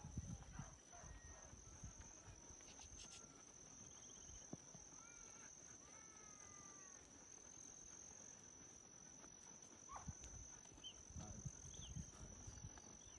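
Near-silent outdoor ambience: a steady high insect drone, with a few short bird chirps in the middle and soft low thumps near the start and again near the end.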